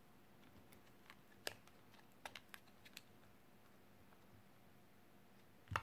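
Near silence with a few faint, scattered clicks and taps from hands handling a glue tube and a metal pendant tray, then one louder click near the end.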